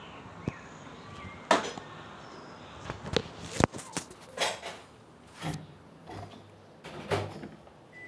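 Irregular knocks and clatters of handling at a front-loading washing machine, the loudest about a second and a half and three and a half seconds in, with the last bump near the end as its detergent drawer slides open.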